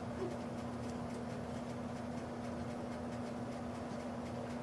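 Steady low hum with faint room noise, and one small tick shortly after the start.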